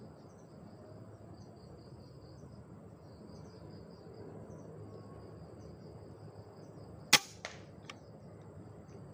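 Air rifle fired at a spotted dove: one sharp crack about seven seconds in, followed by a fainter click, over a steady chirring of insects.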